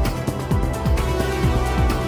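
Electronic music with a steady kick-drum beat.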